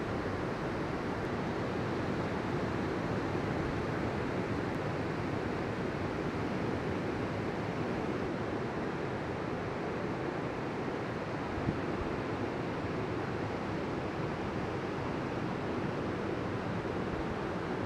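Ocean surf breaking and washing onto the beach: a steady rushing wash with no let-up. There is one brief tap about twelve seconds in.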